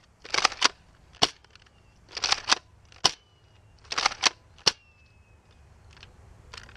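Nerf Mega blaster primed and fired three times in a row: each time a short rasping stroke of the priming action, then a sharp snap of the shot about half a second later. A faint, slightly falling high whistle follows the last two shots, the Mega darts whistling in flight.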